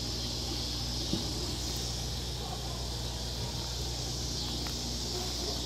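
Steady chorus of insects, a continuous high drone, over a low steady hum, with a faint click about a second in.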